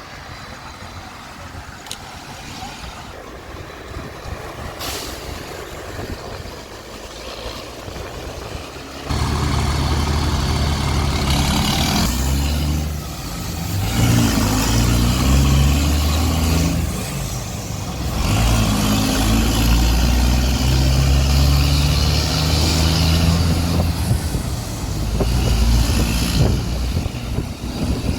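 Diesel engine of an Irizar Century charter coach revving hard as it pulls away. It comes in suddenly loud about nine seconds in, after quieter street noise, and its low rumble dips briefly a few times between runs as it works up through the gears.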